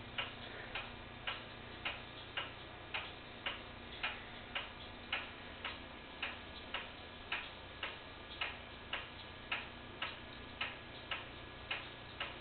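Steady, regular ticking, a little under two ticks a second, over a faint steady hum.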